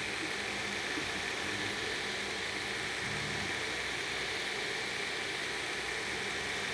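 Biqu B1 FDM 3D printer running, its cooling fans giving a steady whir with a faint steady high tone; the stepper drivers and extruder are barely audible, and the fans are the loudest part of it.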